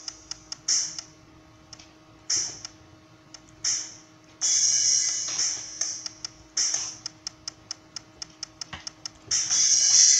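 Real Drum app's virtual drum kit played unevenly by tapping: several cymbal crashes that ring and fade, mixed with runs of short, sharp cymbal-like ticks at about four or five a second.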